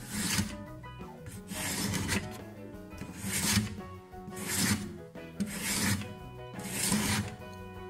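Hand plane with a freshly sharpened blade taking shavings off a softwood board: six pushes, about one every second and a quarter, each a short scraping hiss as the blade cuts.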